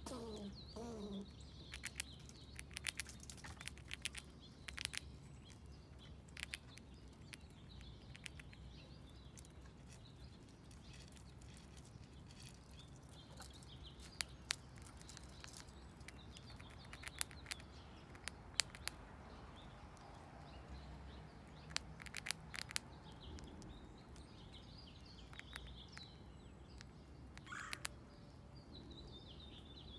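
Gray squirrel gnawing corn kernels: irregular sharp crunching clicks in scattered clusters. Faint bird chirps and a low steady background rumble lie underneath.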